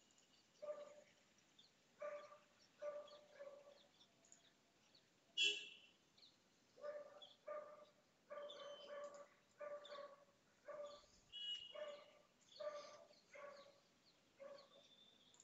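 Faint dog barking, a string of short, evenly pitched barks about one a second with a pause in the middle. A single sharper sound about five seconds in is the loudest moment.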